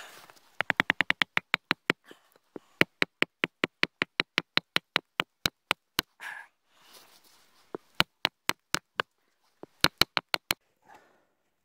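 A wooden peg being driven into a wooden bench frame with a wooden mallet: sharp wood-on-wood knocks. A quick run of light taps comes first, then steady blows about four a second, and a last few hard strikes near the end as the peg seats tight.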